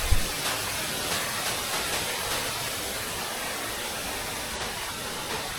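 Steady rush of flowing water from a mountain stream or waterfall, an even hiss, with a brief low thump at the very start.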